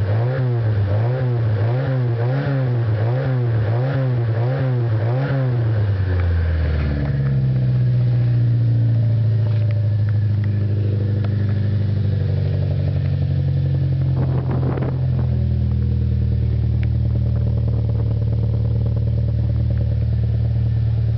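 Y10 hatchback's four-cylinder engine through a tuned exhaust, revved in quick rhythmic blips about one and a half times a second. About six seconds in, it drops to a steady idle.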